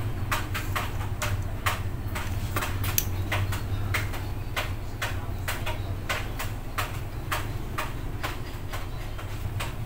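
A steady run of sharp ticks, about three a second, over a low steady hum.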